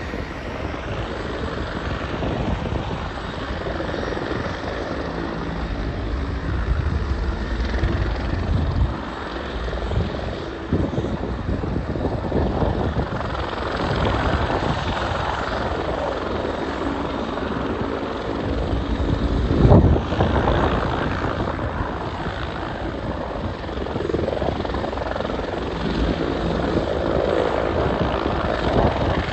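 Car driving along a road: steady engine and road noise rumbling, with a short louder burst about twenty seconds in.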